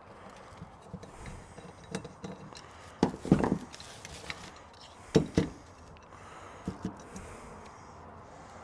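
Screwdriver and metal parts of an aluminium Carter AFB four-barrel carburetor being worked by hand: quiet scattered clicks and rubbing, with two short clusters of knocks about three and five seconds in.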